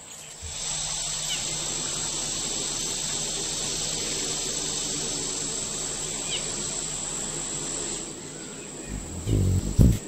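Steady high-pitched insect buzzing, with two faint short chirps, one about a second and a half in and one about six seconds in. Louder low sounds come in near the end.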